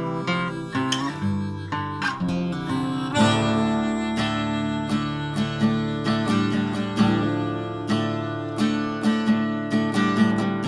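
Instrumental break of a folk song: acoustic guitar strummed in a steady rhythm, with a harmonica playing a melody over it.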